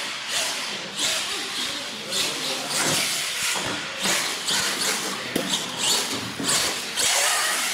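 Electric radio-controlled monster truck driving and turning on a smooth concrete floor: a hissing whir of motor and tyre scrub that surges and falls with the throttle, with a few sharp ticks.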